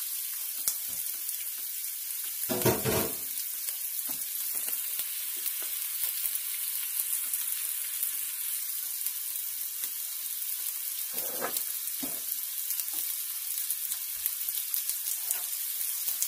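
Sliced raw onions frying in hot oil in a non-stick pot: a steady sizzling hiss with fine crackles, the start of browning the onions. Two louder thumps come about 3 and 11 seconds in.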